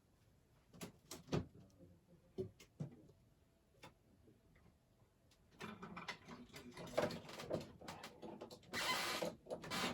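Household noise coming down from the rooms upstairs: scattered knocks and thumps, then a few seconds in a busier run of clatter and rustling, with a loud burst of noise near the end.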